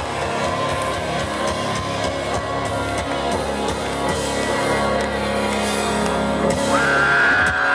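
Live country-rock band playing electric guitars and a drum kit through a loud concert PA, recorded from the audience. A high held note comes in near the end.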